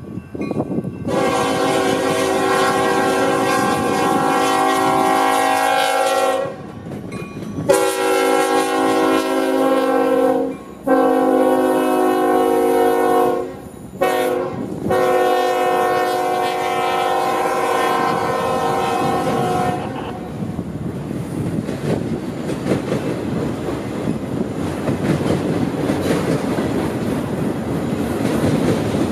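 Union Pacific EMD SD70M's Nathan K5HLL five-chime horn blowing for the grade crossing: a series of long blasts with a short one, ending on a long blast about twenty seconds in. Then the steady rumble and clickety-clack of auto-rack cars rolling past.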